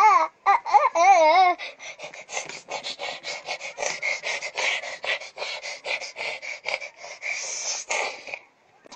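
A boy's drawn-out, wavering 'aaah' call, then a fast run of breathy rasping huffs, about five a second, that stops shortly before the end.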